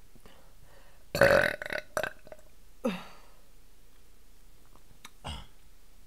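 A woman burping from air swallowed while chugging bottled water. The loudest burp comes about a second in, with short ones soon after, one falling in pitch near three seconds and a small one near the end.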